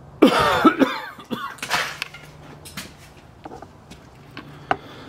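A man coughing hard and hacking to clear something caught in his throat: a loud run of coughs in the first two seconds, followed by a few faint clicks.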